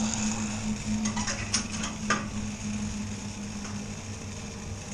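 Steady low mechanical hum from the zip line launch station, with a few sharp metallic clicks about a second and a half to two seconds in.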